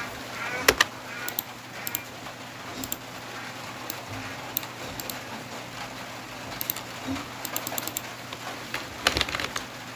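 Computer mouse clicks and keyboard key taps, scattered single clicks with two quick runs of taps in the second half, over a steady low electrical hum.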